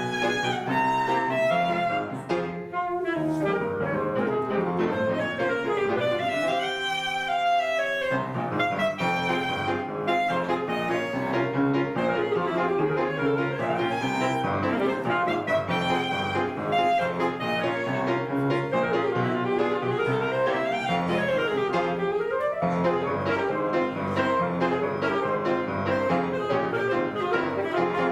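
An orchestra playing a czardas, with busy, quick running phrases that sweep up and down in pitch.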